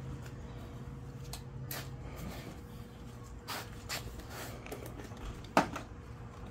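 Gloved hands handling a small jar: soft rustles and light taps, then one sharp click near the end as the lid is set down on the plastic table. A faint steady hum lies underneath.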